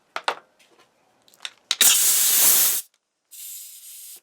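Air hose quick-connect coupler snapped onto a pneumatic stapler's air fitting: a few clicks, then a loud burst of hissing compressed air lasting about a second, then a quieter steady hiss of air leaking from the connection, which the owner calls leaky.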